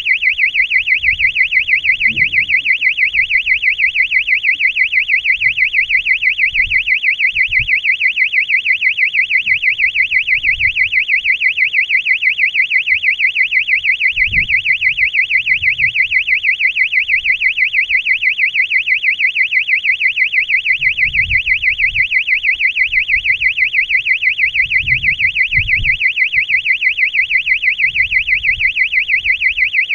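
High-pitched electronic buzzer aboard a high-altitude balloon payload, sounding continuously in a rapid warble like a small siren, typical of a locator beeper for finding the payload after landing. Faint low knocks come and go beneath it.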